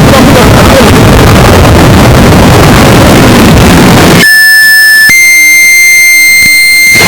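Loud, heavily distorted rushing noise for about four seconds, cut off suddenly by a steady electronic alert tone that jumps higher in pitch about a second later and holds.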